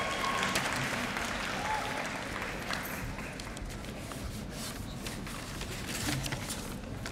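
Audience applauding, the applause dying down over the first few seconds and leaving a few scattered claps.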